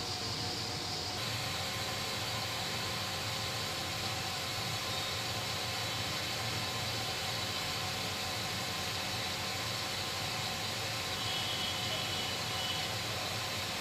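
A steady hiss with a faint hum and no distinct events.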